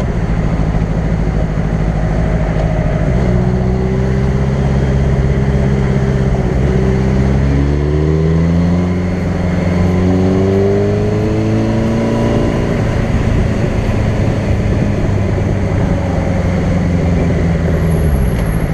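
Sport bike engine running at highway speed under a steady rush of wind and road noise. Through the middle its pitch climbs as the bike accelerates, then it settles back to a steady cruise.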